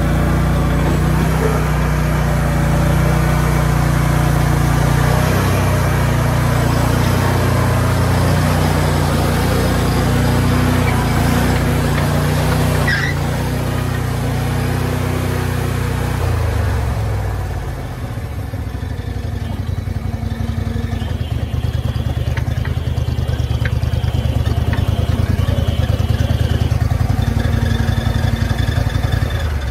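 Bandit ZT1844 tracked stump grinder's engine running as the machine is driven up onto a trailer. About two-thirds of the way through it drops to a lower, evenly pulsing idle, and it cuts off at the very end.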